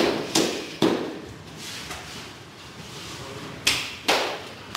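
Sharp slaps from sumo wrestlers, three in quick succession at the start, a lull, then two more near the end, each ringing briefly in the room.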